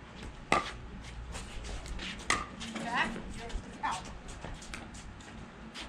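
Pickleball rally: hard paddles striking the plastic ball in sharp, hollow pocks about a second apart, the loudest about half a second in and again just over two seconds in.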